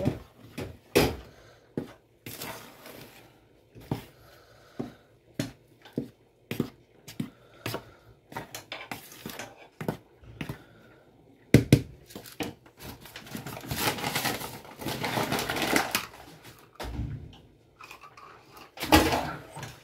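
Dry flour mixture being stirred in a bowl with a spoon and a gloved hand: irregular scrapes, taps and rustles, with a longer stretch of steady scraping about 13 seconds in.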